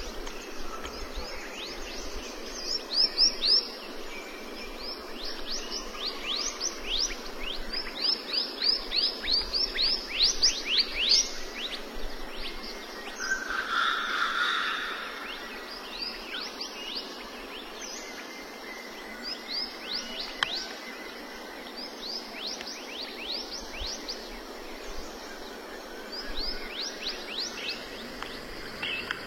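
Bird calls: clusters of short, steeply falling high chirps repeated in quick runs, over a steady background hiss.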